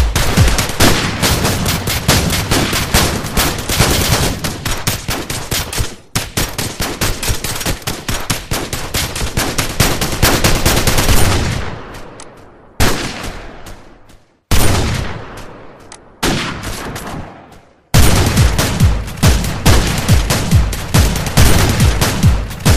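Loud, fast electronic dance music driven by a hard, rapid beat. About twelve seconds in, the beat drops out into a few fading swells that cut off abruptly, and the full beat comes back in about eighteen seconds in.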